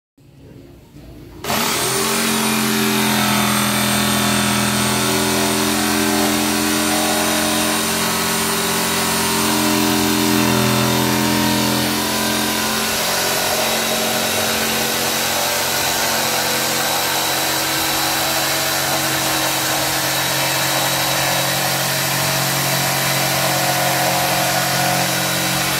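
Makita jigsaw running while its blade saws through plywood: a steady motor whine under the rasp of the blade, starting about a second and a half in. The pitch of the whine shifts a little about halfway through.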